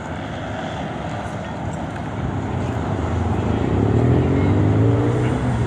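Street traffic: a motor vehicle's engine grows louder about three seconds in and passes close by, its pitch rising slightly, over a steady background of street noise.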